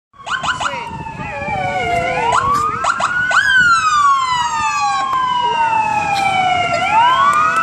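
Emergency vehicle sirens, a fire truck's among them, wailing: each wail rises over about a second and falls slowly, and they overlap with short sharp blips. A small Yorkie howls along with a wavering note under the sirens during the first three seconds.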